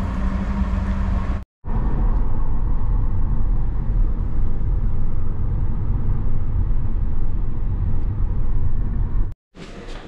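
A car driving, with a steady low rumble of road and engine noise. The sound drops out briefly about a second and a half in and again near the end.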